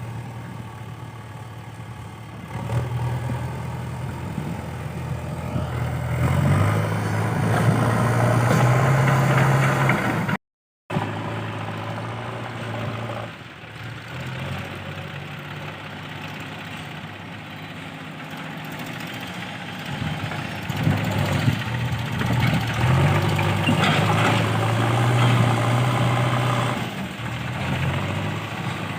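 JCB 3DX backhoe loader's diesel engine running, revving up and holding high revs twice while it works the gravel. The sound cuts out for a moment about a third of the way in.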